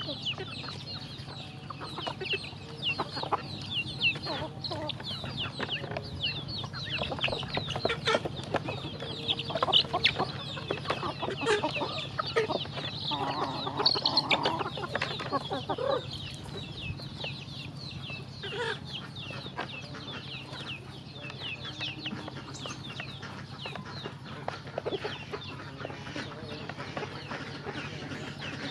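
A flock of chickens pecking at grain in feed trays: a constant chatter of high, short peeps and chirps, hens clucking, with a louder spell of clucking about halfway through, and the sharp taps of beaks on the trays.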